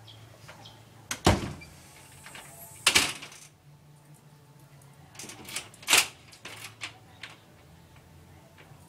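Paper envelope being handled and opened and a card slid out: a few short crinkles and rustles of paper, the loudest about a second, three seconds and six seconds in, with smaller ones around them.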